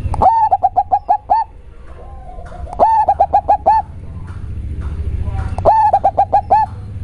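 Local zebra dove (perkutut) singing its cooing song, which the uploader calls very bassy: three phrases, each a quick run of about six to eight rising-and-falling notes, near the start, about three seconds in and near the end, with softer lower cooing between them.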